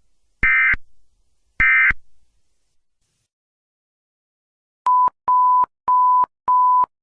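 Two short bursts of Emergency Alert System digital data tones, about a second apart, signalling the end of the message. About five seconds in, a run of steady single-pitch beeps starts, roughly one every 0.6 seconds.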